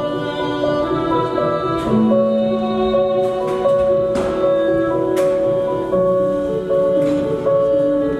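Slow instrumental music with long held notes: the backing track for a dance performance.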